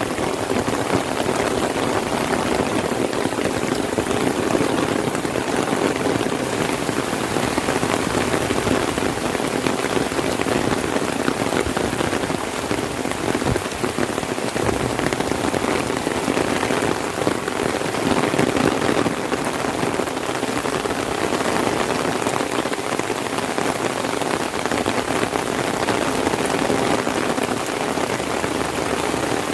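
Heavy rain falling steadily, a dense unbroken patter of drops.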